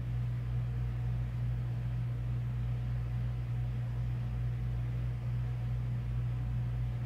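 A steady low hum of background noise, even and unchanging, with no speech.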